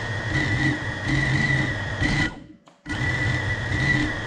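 FPV quadcopter's brushless motors whirring with the drone sitting still, a steady high whine. They cut off about two seconds in and spin up again half a second later.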